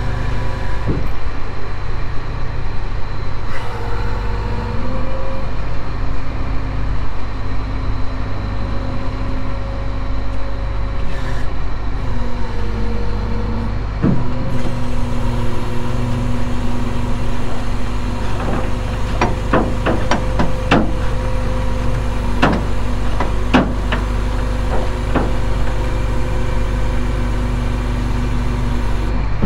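Rollback tow truck's engine running steadily while the hydraulic bed and winch are worked, its hum shifting in pitch a few times. Several sharp clicks and knocks come about two-thirds of the way in.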